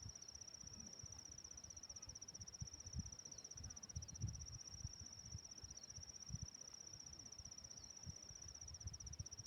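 A steady high-pitched insect trill, cricket-like, running without a break, with irregular low bumps underneath.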